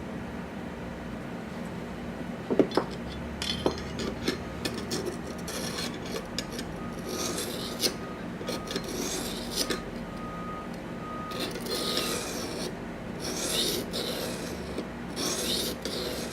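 Super fine 1200-grit Eze Lap diamond stone rasping along a clamped knife's edge in about six slow strokes, each around a second long. A few sharp clicks come about three seconds in, before the strokes begin.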